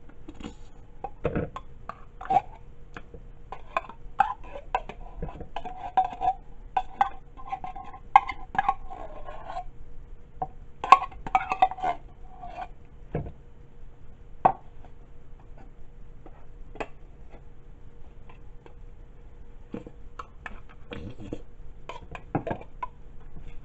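Metal cans and kitchenware clinking, knocking and scraping against a mixing bowl as cans of condensed cream of chicken soup are opened and emptied into it. The clatter is busiest through the middle.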